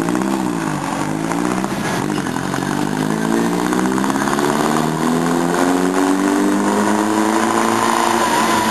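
Small vintage Fiat car engine being run to warm it up. It gives one quick rev right at the start, then its revs climb steadily over a few seconds and hold high.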